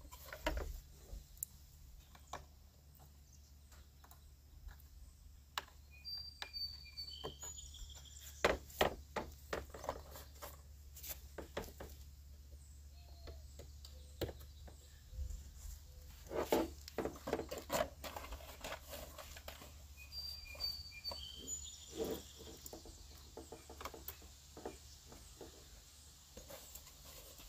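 Irregular clicks and knocks of a plastic car door trim panel being handled while its little white push-in retaining clips are fitted into their spots. A bird chirps briefly about a quarter of the way in and again about three quarters through.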